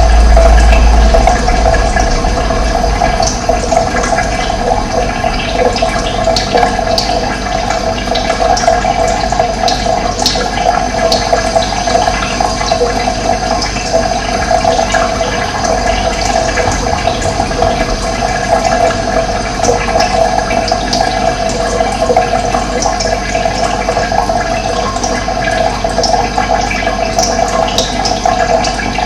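Steady rushing of running water, with many short high splashes or ticks scattered over it; a deep rumble underneath drops away about a second in.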